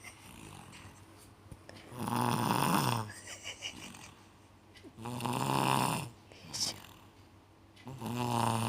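A man snoring: three loud, pitched snores about three seconds apart, the last starting near the end, with quieter stretches between.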